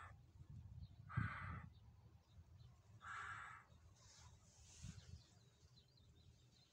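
Hoopoe giving its harsh, rasping call, three short calls about two seconds apart.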